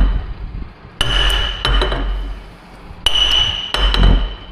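Hammer blows on a steel hydraulic cylinder rod: several metal-on-metal strikes, two of them ringing on at a high pitch for about a second each.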